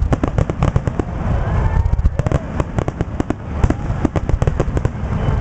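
Fireworks grand finale: aerial shells bursting in a rapid, overlapping run of sharp bangs and crackles over a continuous low rumble.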